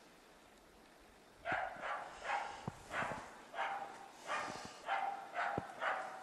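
A hunting dog barking at game, the ståndskall bay used to hold a capercaillie in place for the hunter. It begins about a second in as a rapid, steady run of barks, about two a second.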